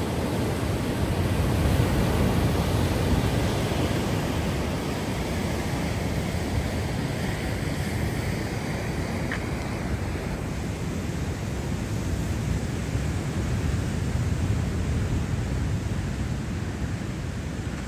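Sea surf breaking on the shore mixed with wind buffeting the microphone, a steady rushing noise with a low rumble.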